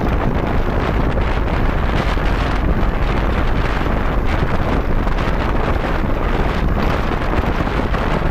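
Wind buffeting the microphone of a moving motorcycle: a steady, loud rush of noise.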